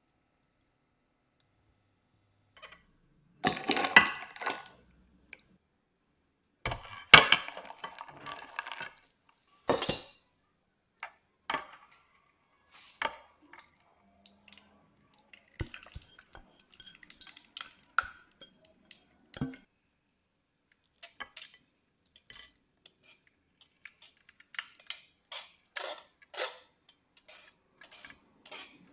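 Kitchen clatter of a metal saucepan, glass bowl and utensils clinking, loudest in two bursts a few seconds in, then scattered clicks. Near the end a spoon scrapes and taps quickly against a fine-mesh metal sieve as thick custard is pushed through it.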